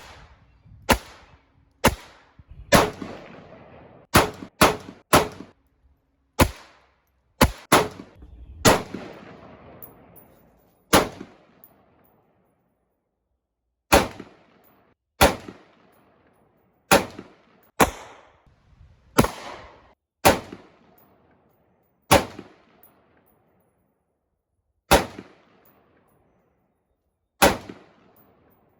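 Single gunshots fired one at a time, about twenty in all, spaced from under half a second to a few seconds apart. Some shots are followed by a long echoing decay.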